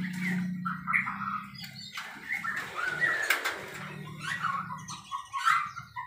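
Small cage birds chirping in many short, repeated calls. Wings flutter and there are clicks from the wire cage as a hand works inside it.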